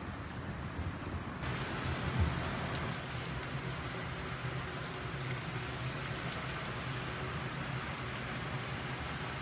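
Steady rain-like hiss of water with no break, growing brighter and fuller from about a second and a half in.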